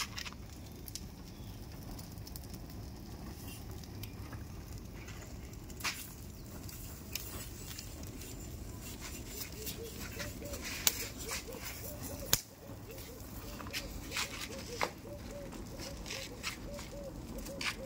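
Open wood fire burning under a singeing ram carcass, crackling with scattered sharp pops, a couple of them louder past the middle.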